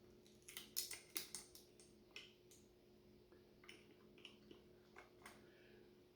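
Faint, scattered clicks and taps of a small pull-chain lamp socket and its parts being handled, several in quick succession about half a second to a second and a half in, then a few single ones, over a faint steady hum.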